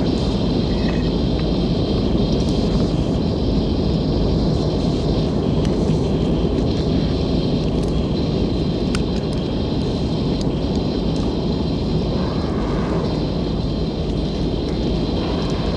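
Steady low rushing rumble with a faint high whine above it, no speech, easing slightly in level about two-thirds of the way in.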